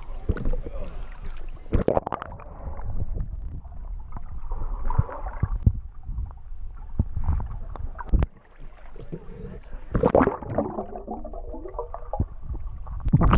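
Water sloshing and gurgling around a GoPro as it moves through spring water, with a low rumble and irregular knocks against the camera.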